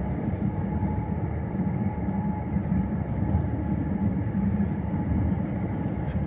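Steady low rumble of new Toei Mita Line 6500-series subway cars rolling past on their wheels, hauled unpowered as a freight transfer.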